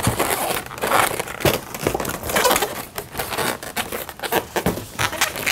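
Latex twisting balloons rubbing against one another as a balloon sculpture is handled and a balloon's tail ends are tied, in irregular rubbing and scraping sounds.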